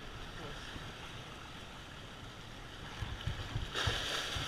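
Sea waves washing against jetty rocks, with a wave splashing up louder near the end, and wind gusting on the microphone.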